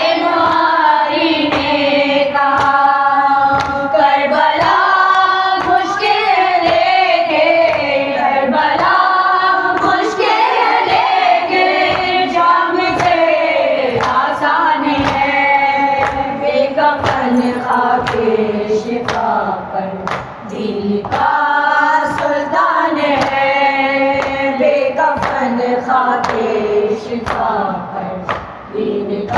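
A noha, a Shia mourning lament, sung by a woman's voice with a chorus of voices. Sharp, fairly regular slaps keep the beat underneath.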